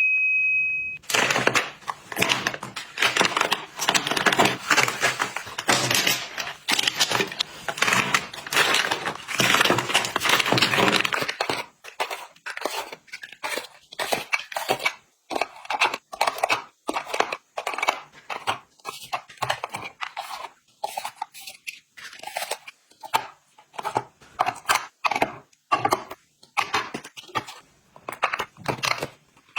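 Plastic packaging crinkling and tearing, a dense crackle for the first ten seconds or so. After that come many separate light taps and rustles as items are handled and set down.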